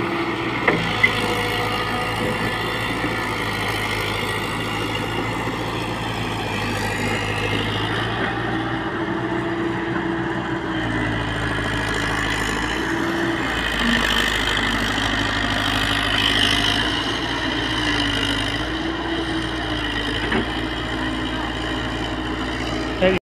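JCB tracked excavator's diesel engine running steadily. Its tone dips and rises every few seconds as the arm and bucket work, then cuts off suddenly near the end.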